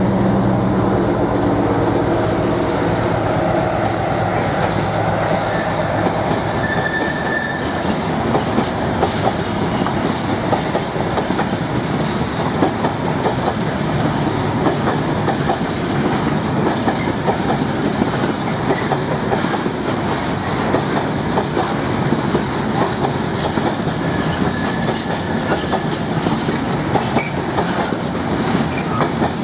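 Freight train wagons rolling past, a continuous dense clatter of wheels over rail joints. Faint brief wheel squeals come about seven seconds in and again near the end.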